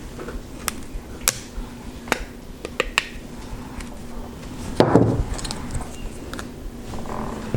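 Small tools clicking and tapping against a smartphone's casing as it is taken apart by hand, several sharp separate clicks, with a brief louder scrape or rustle about five seconds in, over a faint steady hum.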